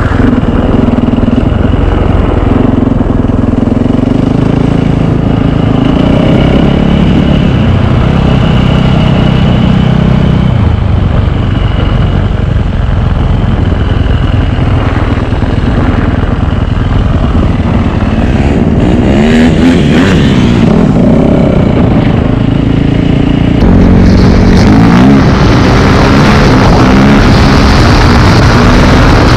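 Onboard sound of a four-stroke single-cylinder motocross bike engine being ridden on ice, the revs rising and falling as the rider works the throttle. About three-quarters of the way through, the sound steps up louder with a stronger rush of wind on the microphone.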